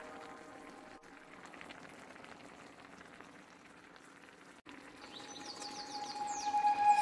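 A pan of fish and vegetable stew simmering, a faint steady bubbling and crackling. Music fades in near the end.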